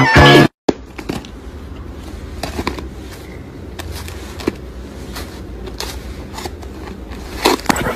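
A burst of electronic music cuts off about half a second in. After it comes a low, steady rumble with scattered small clicks and crackles, a few louder ones near the end.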